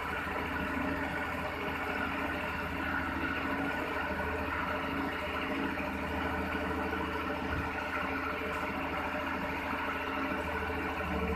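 Kato HD450SE tracked excavator's diesel engine running steadily as the arm swings and dumps soil into a truck bed, a continuous low hum with no break.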